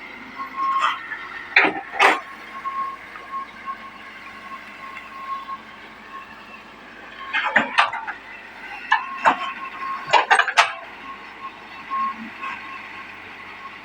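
Excavator digging out a ditch: a thin whine comes and goes while several short, sharp clanks and scrapes sound, in clusters about 2 seconds in and again around 8 and 10 seconds.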